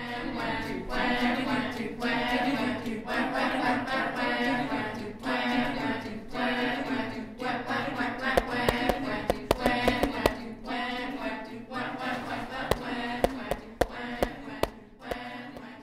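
A group of voices singing unaccompanied in short chanted phrases about once a second. About halfway through, sharp clicks join in, coming irregularly several times a second until near the end.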